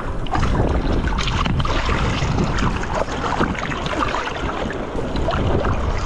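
Jet ski running across the water, with wind rushing over the microphone and water splashing against the hull.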